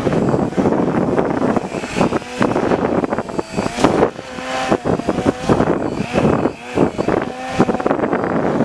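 Heavy wind buffeting on the microphone over the whine of an electric RC aerobatic plane's Hacker brushless motor and APC 12x6E propeller, its pitch rising and falling with the throttle in the middle of the stretch.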